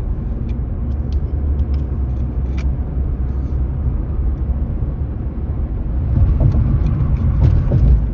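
Steady low rumble of a car driving at highway speed, heard from inside: tyre and wind noise. It swells louder about six seconds in.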